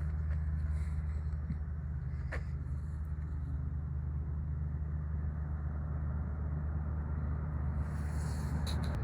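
Car driving, a steady low road rumble throughout, with a single sharp click about two seconds in and a brief hiss near the end.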